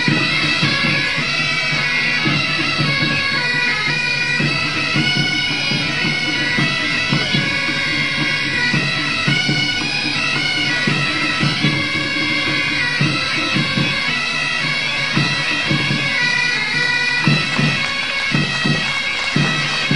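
Pipe-and-drum music: reed pipes play a steady melody that steps from note to note over repeated drum beats.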